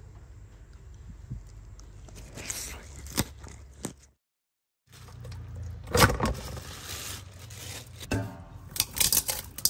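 Faint handling sounds over a low hum, a second of silence about four seconds in, then scrapes and sharp knocks against a stainless steel bowl as raw pig intestine is handled in it. The loudest knocks come about six seconds in and again near the end.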